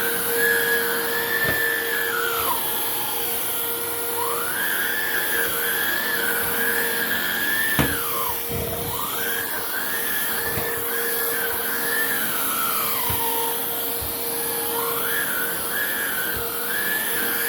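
Hoover React cordless vacuum running, with a steady hum under a higher whine that sinks in pitch and climbs back three times. A few short knocks sound through it, the sharpest about eight seconds in.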